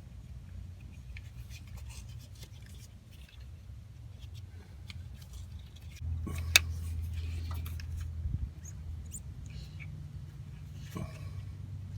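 Small clicks and snips of hand tools working wire splices, crimping butt splice connectors onto wires, with one sharp click about six and a half seconds in. A low hum comes in at about six seconds and stops about two seconds later.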